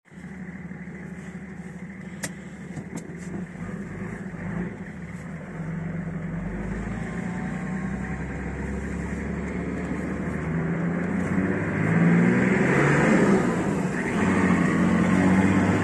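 Nissan Patrol TD42T, a 4.2-litre straight-six turbo-diesel, running through a 3-inch straight-through exhaust, heard from inside the cabin as it pulls away uphill. The engine note grows steadily louder and rises in pitch. It drops briefly near the end and then climbs again.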